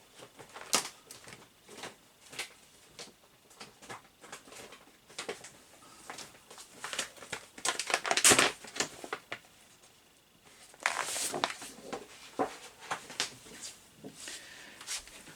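Sheets of paper and card being rustled and shuffled through, with scattered light clicks and taps and a few louder rustles partway through, as a piece of cardstock is looked for.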